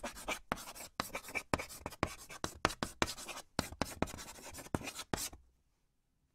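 Chalk scratching on a blackboard in a quick run of short handwriting strokes, stopping about five seconds in.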